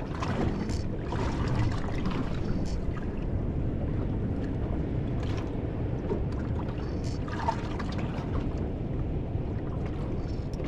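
Water lapping and splashing against the hull of a small boat on open sea, over a steady low wash of noise, with a few short sharp slaps scattered through.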